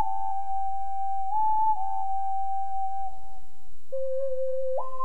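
Ocarina playing a slow melody, one pure, clear note at a time with long held notes. Near the end it drops to a low note, then leaps up about an octave.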